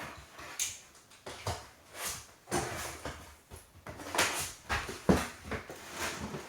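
Boxed LEGO sets being handled, shifted and set down: an irregular run of rustles and knocks, busiest about four to five seconds in.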